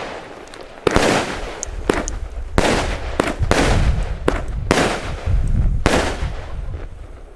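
Consumer firework battery (the Pyrozone) firing: about seven sharp bangs roughly a second apart, each followed by a short crackling hiss as the effect bursts.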